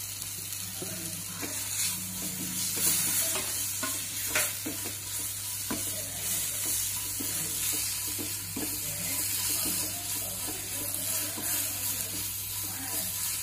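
A wooden spatula stirring and scraping mushroom masala and chopped tomatoes in a non-stick pan, with irregular scrapes and knocks over a steady sizzle of frying.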